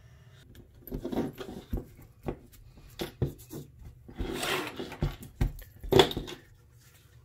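Handling noises on a work table as a pencil is set down, a piece of leather and a small brass oiler cap with its chain are moved, and a pair of scissors is picked up: a run of separate knocks and clicks with a short scuffing rustle in the middle, the sharpest click about six seconds in.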